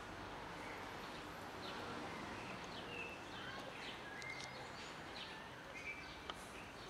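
Outdoor ambience with small birds chirping on and off, short high chirps scattered throughout. Two sharp clicks sound about six seconds in.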